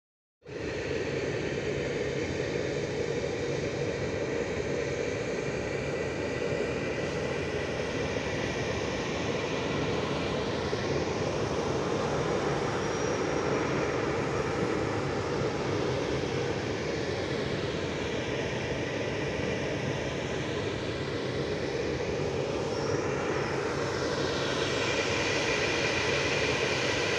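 Electric trains moving through a large railway station: a steady rumble and hum, with several whines that glide down and up in pitch in the second half.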